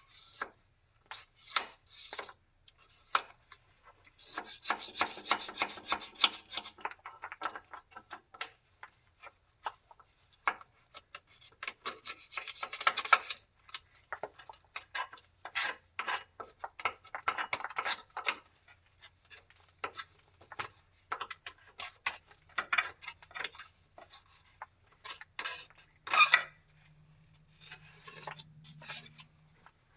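Hand scrubbing and scraping at caked oily grime on an excavator: many short, irregular rasping strokes, with two longer spells of steady scraping about five seconds in and about twelve seconds in.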